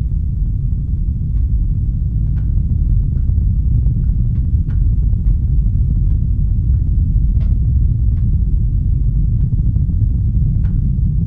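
Steady low industrial rumble, the machine-world ambience of the film's soundtrack, with faint metallic clicks and ticks scattered irregularly over it, the clearest about halfway through and near the end.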